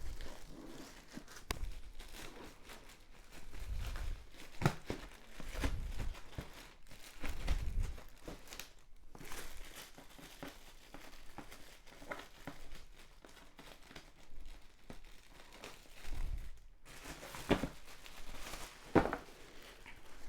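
Packing tape being torn and peeled off a cardboard box, with the cardboard and packaging crinkling and rustling and a few soft thumps as the box is handled.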